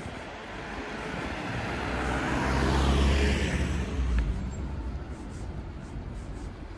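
A car passing close by on the street: its engine and tyre noise swell to a peak about three seconds in and then fade, over a steady hum of traffic.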